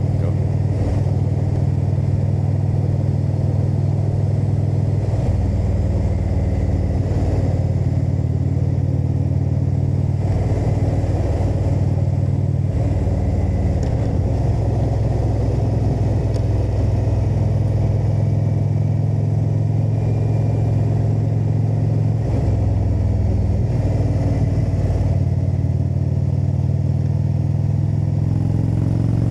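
Indian V-twin motorcycle engine running on the road, its note stepping up and down several times as the rider changes speed and gears.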